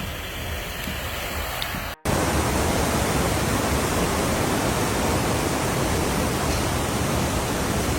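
Rushing floodwater: a loud, steady wash of noise that comes in abruptly about two seconds in, after a brief dropout and a quieter stretch of steady hiss.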